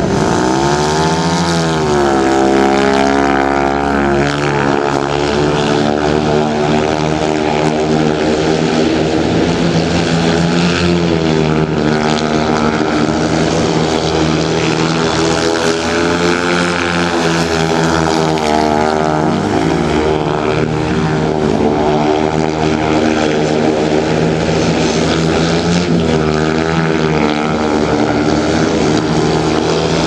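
Speedway motorcycle's single-cylinder methanol engine running hard. The revs climb sharply about a second in, then the pitch keeps swinging up and down as the rider works the throttle through the broadsliding bends.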